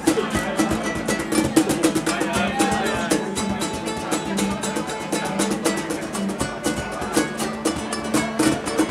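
Acoustic band playing a fast song live: strummed acoustic guitar and a small four-string guitar-like instrument, driven by rapid, dense strumming strokes with some percussion.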